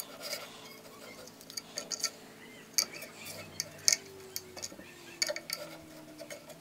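Steel Allen key clicking and scraping against a rusted band-saw motor pulley and its set screw, in irregular light metal taps, the sharpest near the middle. The key will not seat in the rust-choked set screw.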